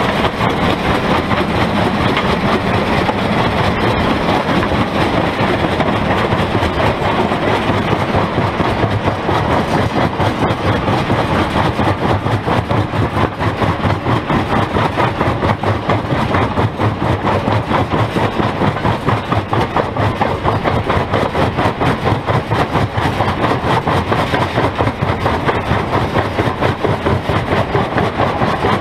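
Primary jaw crusher running, breaking large blocks of stone between its jaws: a loud, steady mechanical din with a rapid, even pulsing.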